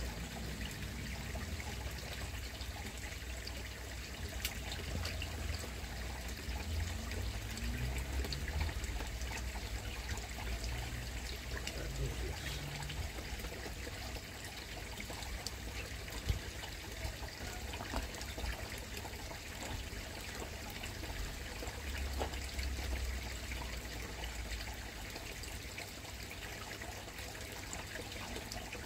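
Koi pond water trickling steadily, over a low rumble, with a single sharp click about sixteen seconds in.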